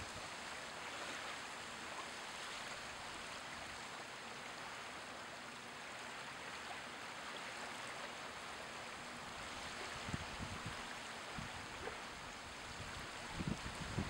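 Small waves lapping at the water's edge: a steady wash of water, with a few soft low thumps in the last few seconds.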